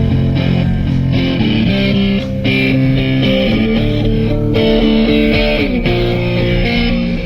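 Loud music led by guitar, with heavy bass, playing on a car audio system with four Ace Audio Jester 12-inch subwoofers. The notes slide down in pitch about six seconds in.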